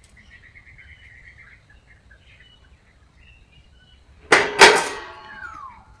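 Two sharp metallic clanks in quick succession about four seconds in, ringing on briefly: thin galvanized light-gauge steel studs knocking together. Before them, faint bird chirping in a quick trill.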